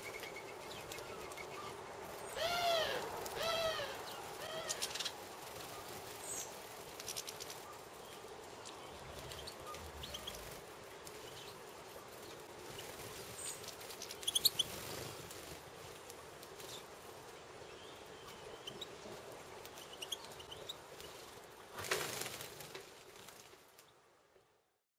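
Wild birds calling: a quick run of about four arched calls a couple of seconds in, then scattered short high chirps, with a brief noisy rush near the end before the sound fades out.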